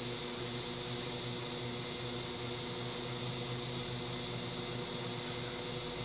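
Microwave oven running with its outer cover off, a steady hum over the noise of its cooling fan, on a test run after a magnetron replacement.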